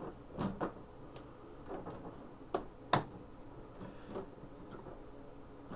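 A few sharp clicks and light knocks from the display's bottom panel being fitted back on by hand, the loudest click about three seconds in.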